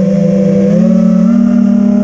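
FPV quadcopter's motors and propellers whining steadily, the pitch stepping up and down with the throttle, rising about a second in.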